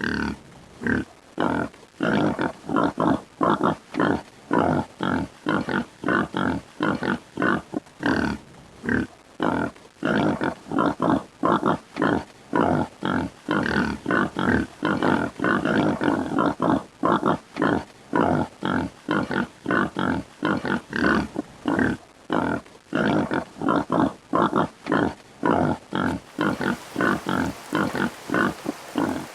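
Hippopotamus grunting in a long, regular series of short calls, about two a second.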